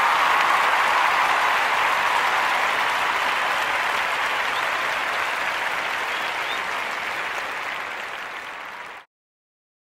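Applause, a steady clapping that gradually fades and then cuts off abruptly about nine seconds in.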